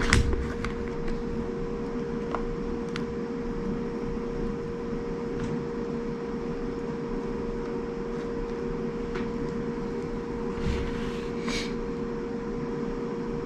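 A steady hum with a constant tone, from an unseen appliance, runs under a few faint ticks and brief rustles as handfuls of coconut coir substrate are crumbled into a plastic tub. The rustles are louder twice, a little before the end.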